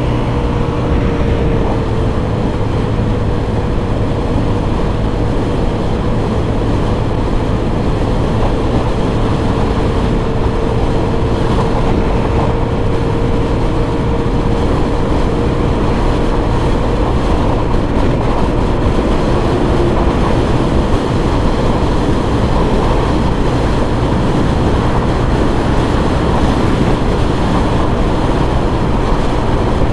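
Suzuki Burgman 125 single-cylinder scooter running at steady highway cruising speed, its engine drone mixed with heavy wind rush over the onboard microphone. A faint steady whine drifts slightly lower and fades about halfway through.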